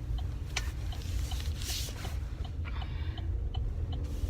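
Steady low rumble of a car's engine and tyres heard from inside the cabin, with faint regular ticks roughly twice a second and a brief hiss about a second and a half in.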